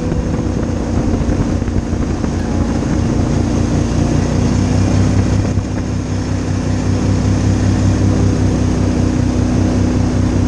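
Outboard motor of a shallow-running boat running steadily under way, a constant engine drone.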